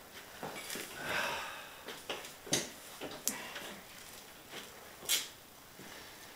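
Handling noises as lifting gloves are adjusted and a barbell is gripped: a short rasping rustle about a second in, then a few scattered sharp clicks and knocks.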